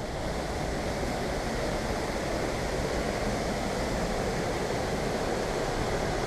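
Steady rush of falling water from the Reekie Linn waterfall and the River Isla in its gorge, an even roar with no breaks.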